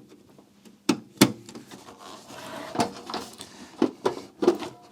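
Clicks and knocks of hands and a screwdriver working on a MiniDisc deck's casing and front panel, several sharp knocks with light rustling between, the loudest about a second in.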